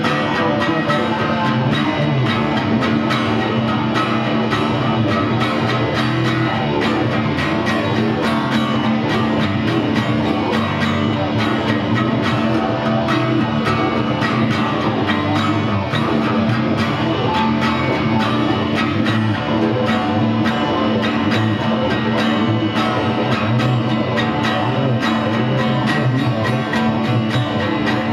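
An acoustic guitar strummed steadily with a pick, played together with an electric guitar in an instrumental guitar duet without singing.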